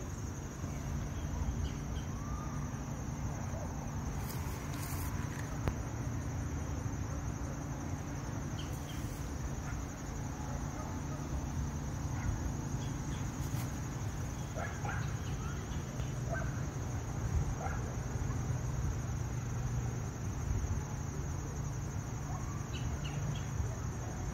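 Outdoor crowd ambience: a low rumbling murmur with a few faint scattered voices, under a steady high-pitched insect drone.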